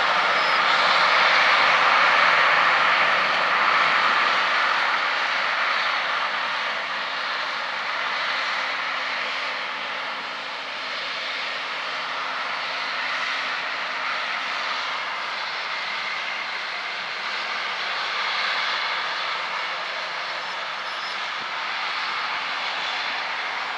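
Harvest machinery running steadily with a loud, even whirring drone and a faint engine hum underneath. It eases a little after the first few seconds.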